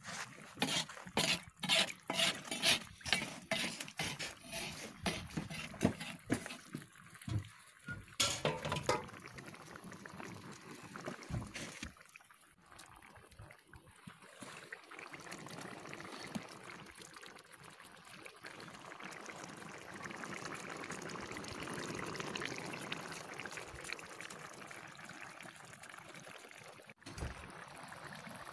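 Rice being added to a cast-iron kazan of hot zirvak broth for plov and worked in with a slotted skimmer: a run of splashes and sloshes for about the first nine seconds, then the broth bubbling steadily.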